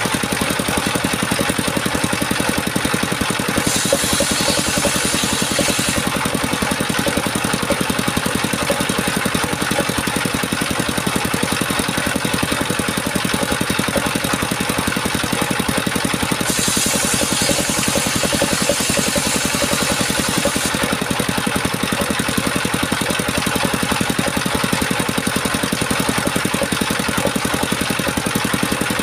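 A small engine running steadily at an even speed, with a brighter hiss added twice, for about two seconds a few seconds in and for about four seconds past the middle.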